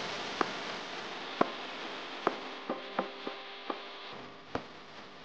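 Wooden spoon knocking and scraping against a frying pan while stirring minced beef and onion filling, about eight sharp knocks that come quicker in the middle, over a steady hiss of the filling frying.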